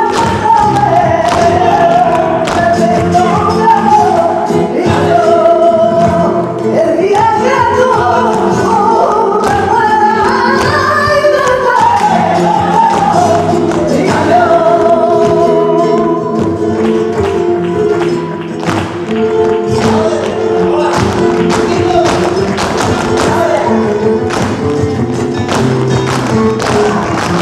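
Flamenco soleá por bulerías: a singer's wavering, ornamented cante over guitar, with sharp percussive taps of the dancers' heeled shoes on the stage. The singing falls away about two thirds of the way through, and the taps grow denser near the end.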